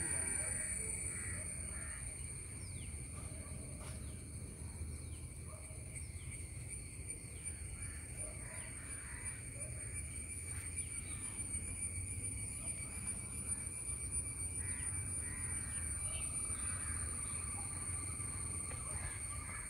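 Outdoor natural ambience: a steady high-pitched drone and a fainter steady lower tone throughout, with scattered short bird calls over a low rumble.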